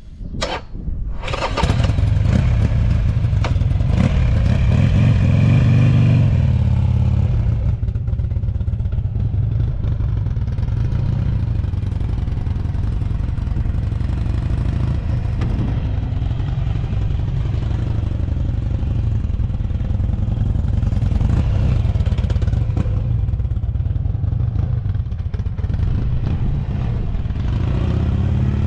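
Buell XB12SS Lightning's air-cooled 1203 cc V-twin, fitted with an aftermarket Strike Weapon muffler, cranked on the starter and catching first time from cold. Its revs rise briefly about five seconds in, then it settles to a steady, loud, rumbling idle with no abnormal noise.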